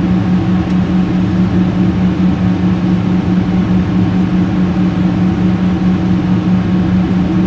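Steady cabin drone of a jet airliner in flight: engine and airflow noise heard inside the cabin, a constant low hum over an even rush.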